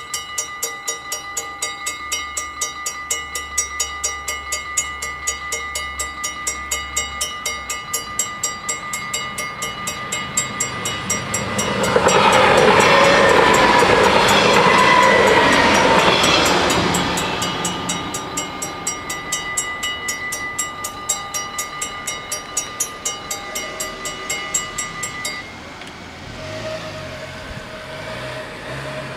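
Level-crossing warning bells ringing in a fast, even rhythm while a Stadler GTW diesel multiple unit passes, its noise loudest for about five seconds around the middle. The bells stop a few seconds before the end, as the crossing clears.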